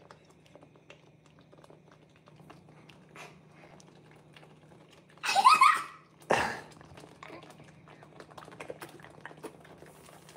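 Thick tomato sauce bubbling in a pan on high heat: a stream of small soft pops and spits over a low steady hum. The popping is strong enough to spatter sauce. About five seconds in, a child gives a brief rising squeal, followed at once by a sharp thump.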